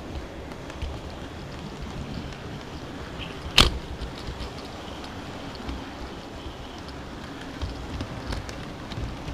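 Model railway train rolling along its track, a steady rumble and crackle of wheels on rails picked up by a camera riding on the train. One sharp click about a third of the way in.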